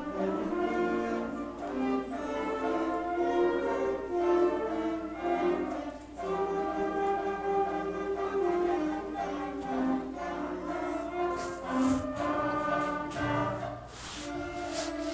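Background orchestral music with choir-like sustained notes.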